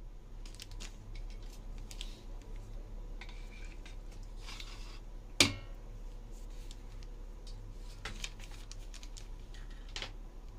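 Steamed pumpkin slices being tipped from a stainless steel bowl into another bowl: soft sliding and light knocks, with one sharp clink and brief ring, the steel bowl striking the other bowl's rim, about five seconds in.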